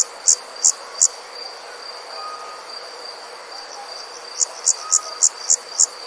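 Night insects calling: a steady high-pitched trill with loud, sharp chirps repeating about three times a second over it. The chirps stop about a second in and start again about four and a half seconds in.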